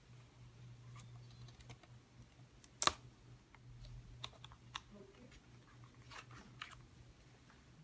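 Scattered small clicks and taps of hands handling a laptop's parts, with one sharper click about three seconds in, over a low steady hum.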